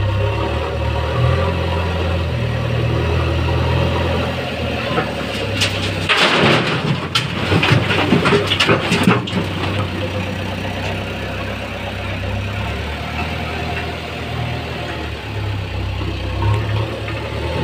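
A JCB backhoe loader's front bucket tipping a load of soil and stones into a steel tractor trolley: a loud rush and clatter of earth hitting the metal bed, about a third of the way in and lasting about four seconds. Diesel engines run steadily underneath.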